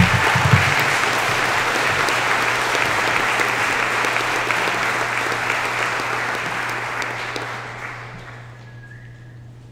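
Audience applauding, loud at first and fading out over the last couple of seconds. A few low thumps come at the very start, and a steady low hum runs underneath.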